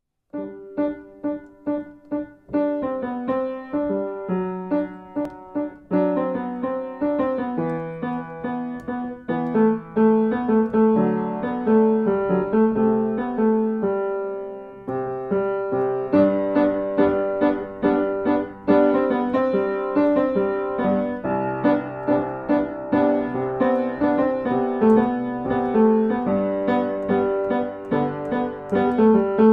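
Solo piano music: a steady flow of notes that thins briefly about halfway through and then grows fuller.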